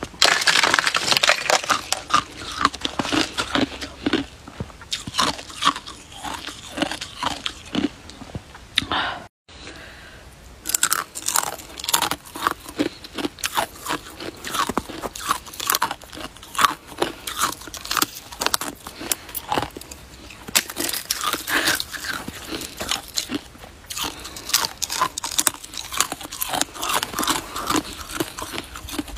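Hard icicles being bitten and chewed: many sharp crunches of ice, with a brief silent break about nine seconds in.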